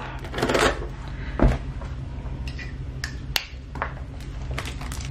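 Plastic shrink-wrap being handled and pulled off a long cardboard box: crinkling and rustling, with a dull knock about one and a half seconds in and a few sharp clicks around three seconds in.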